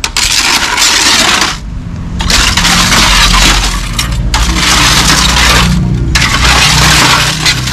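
Loose panes of glass clinking, scraping and clattering against each other as a metal snake hook shifts them. It comes in several long stretches with short breaks between.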